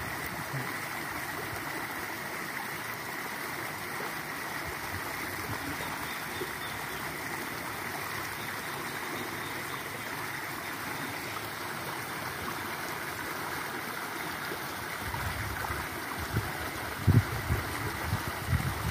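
Shallow forest stream running steadily, water rippling and gurgling over a fallen log. A few short low knocks come near the end.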